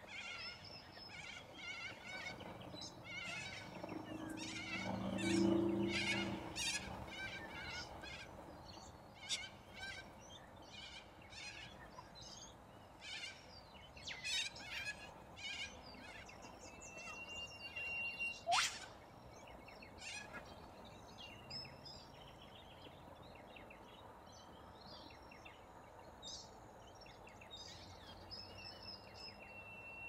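A flock of corellas calling while feeding: many short, harsh calls, thick through the first half and sparser later. About five seconds in comes a lower, drawn-out cry, the loudest sound, and just past halfway a single sharp whistle falling steeply in pitch.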